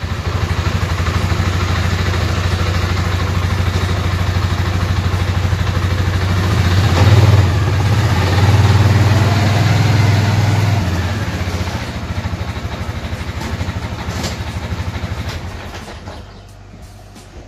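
2014 Polaris Sportsman 550 ATV's single-cylinder four-stroke engine running, louder and revved up for a few seconds in the middle, then fading as the quad rides away near the end.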